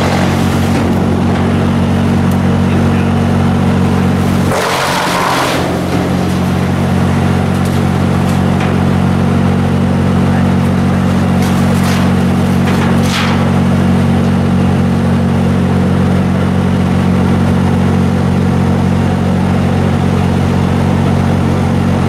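Mobile wood chipper's engine running steadily under load, with short harsh bursts of chipping noise about five seconds in and again around twelve to thirteen seconds as leafy branches are fed through and shredded.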